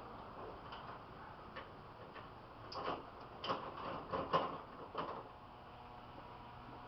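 A handful of light clicks and knocks, bunched from a little under three seconds in to about five seconds in.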